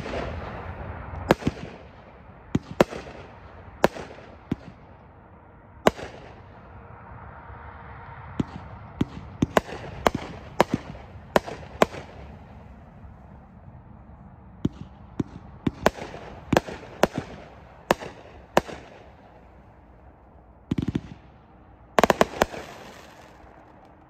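Pyro Demon 500-gram repeater cake firing: a series of sharp bangs as its shots burst, unevenly spaced, with quicker runs of several reports. Near the end comes a short, dense crackling burst.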